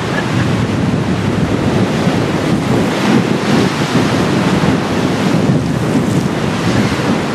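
Strong wind buffeting the microphone in loud, uneven gusts, over choppy waves washing against the shoreline rocks.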